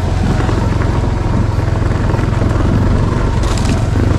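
Motorcycle engine running at a steady pitch as the bike is ridden, with a steady low hum.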